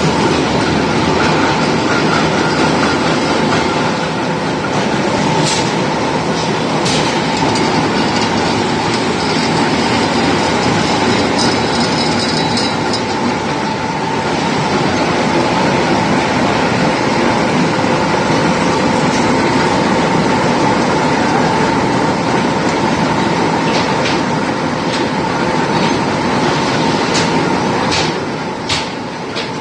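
Steel rebar rolling mill line running: a steady, loud industrial din of rolling stands, roller tables and cooling water, with a steady whine through it. Occasional metallic clanks, several close together near the end.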